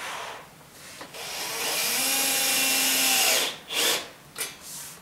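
Cordless drill/driver with a square-head bit driving screws through a storm door's frame into the door molding: a brief burst at first, one run of about two and a half seconds, then a few short bursts near the end as the screws seat.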